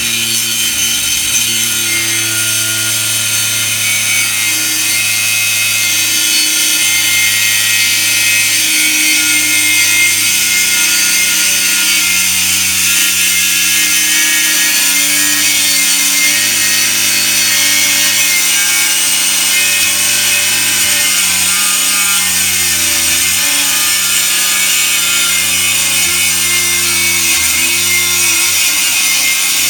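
Cordless grinder fitted with a 46-grit diamond cutting wheel sawing through a solid piece of wood. It makes a steady motor whine over a coarse grinding hiss, and the pitch sags briefly a couple of times as the wheel loads up in the cut.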